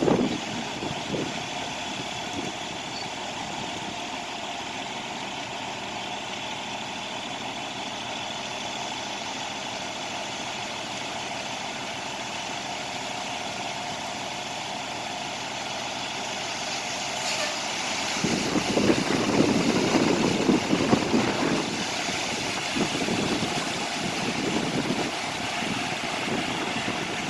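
Truck engine running steadily at a concrete pour, growing louder and rougher for a few seconds past the middle before settling again.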